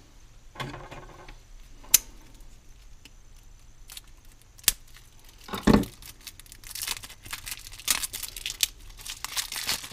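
A folding pocket knife cutting the cellophane wrap on a deck of cards: a few sharp clicks, then scratchy tearing and crinkling of the plastic film over the last few seconds.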